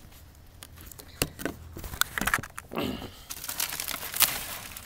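Aluminium foil crinkling and rustling as a foil-wrapped rack of ribs is handled, with several sharp clicks and knocks scattered through it.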